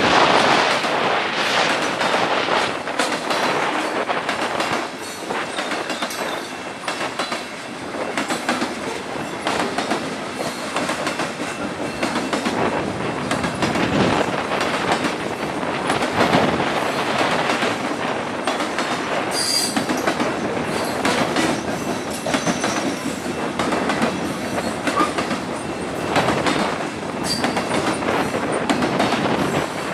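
Freight train of covered hopper cars rolling past on a curve: continuous clatter and rumble of steel wheels over the rails, with a brief high-pitched wheel squeal about twenty seconds in.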